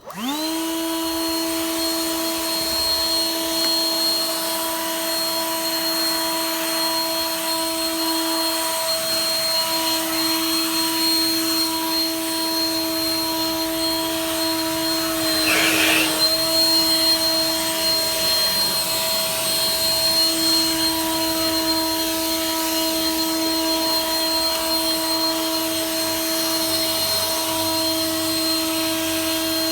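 WORX 20V Turbine two-speed cordless leaf blower switched on, spinning up with a quick rise in pitch and then running steadily: a high motor whine over a rush of air. The tone dips briefly about halfway through.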